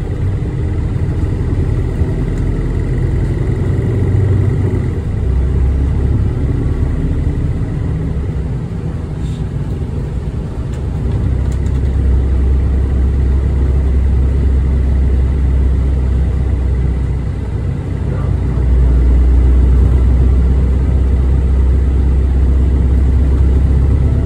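City bus running along its route, heard from inside the bus: a low engine and road rumble that swells and eases a few times with the throttle, heaviest in the last few seconds.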